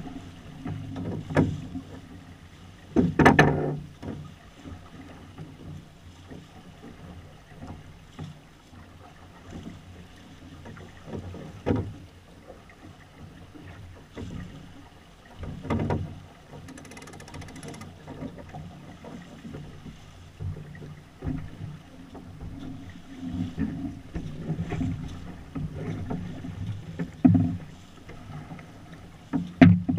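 Small sailboat under sail: a steady rush of water along the hull, broken by a few sharp knocks and thumps, the loudest a few seconds in.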